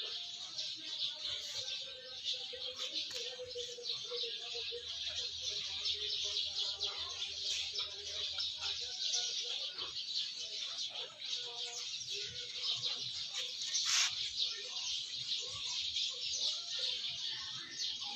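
Continuous dense high chirping of birds, with one sharp click about three-quarters of the way through.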